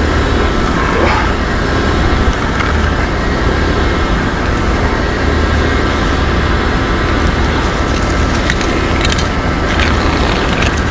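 An engine running steadily with an even low drone, with a few sharp clicks near the end.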